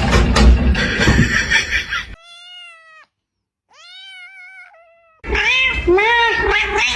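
Domestic cat meowing: two separate drawn-out meows about two and four seconds in, then a loud, fast run of short repeated meows from about five seconds in. A noisy first two seconds comes before them.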